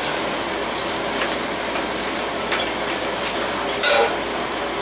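A steady rushing noise runs under a metal spatula sliding and clicking against a stainless frying pan as a blackened salmon fillet is lifted out, with the loudest clink about four seconds in as it is set down on the plate.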